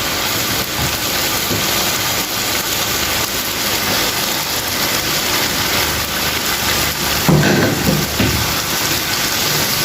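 Boneless chicken in a dried-down yogurt masala frying in a pan, a steady sizzle, with a brief louder stretch about seven seconds in.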